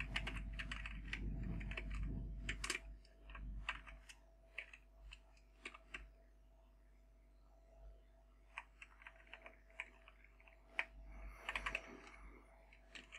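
Computer keyboard typing: irregular keystrokes, a pause of a second or two in the middle, and a quick flurry of keys near the end.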